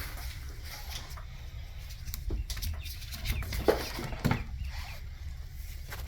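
Scattered light clicks and taps from hands and tools working on the fuel pump's retainer, over a low steady hum.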